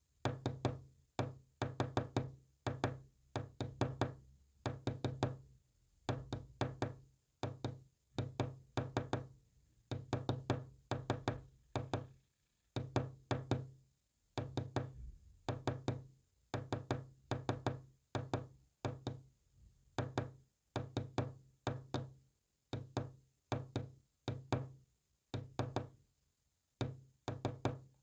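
Morse code sent as quick knocks: short groups of rapid sharp taps separated by uneven pauses, repeating steadily.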